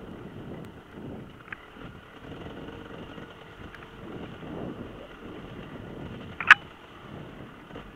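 Enduro motorcycle engines running at a distance, rising and falling, with wind noise on the microphone. A sharp click about six and a half seconds in is the loudest sound.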